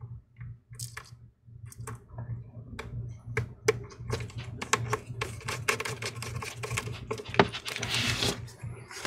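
Irregular small clicks and taps of a screwdriver and fingers against a MacBook Air's aluminium case and hinge as a hinge screw is put in, with a short rustling shuffle near the end as the laptop is shifted. A low steady hum runs underneath.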